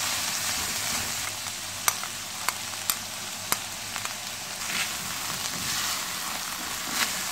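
Peas, carrots and onion sizzling in oil in a non-stick wok while a silicone spatula stirs them, a steady frying hiss. A few sharp clicks come between about two and four seconds in.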